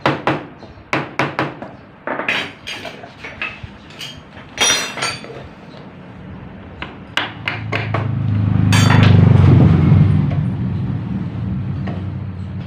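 Hammer tapping on the seized clutch cover of a Honda Supra 125 engine, a run of sharp metallic knocks over the first five seconds or so, with a few more around seven seconds in. About eight seconds in, a low engine drone swells up, becomes the loudest sound, then eases off a little.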